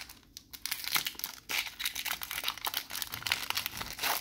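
Foil wrapper of a Pokémon trading-card booster pack crinkling and tearing as it is pulled open by hand. It starts after a short quiet moment at the beginning.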